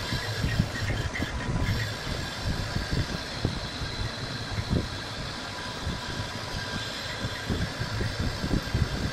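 Metal lathe running with a large workpiece turning in it: a steady machine hum with a thin whine, over irregular low knocks and rattles from the drive.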